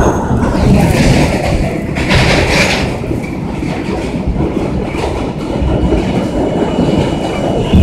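R32 subway car running at speed on elevated track, heard from inside: a steady rumble and clatter of wheels on the rails. A faint steady high tone comes in about halfway through.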